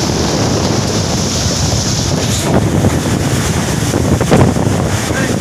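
Storm wind blowing hard and buffeting the microphone in a loud, steady rush, with two brief louder gusts about halfway through and again near the end.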